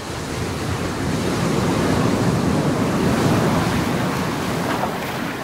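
Surf and splashing water: a dense rushing hiss that swells through the middle and eases off near the end.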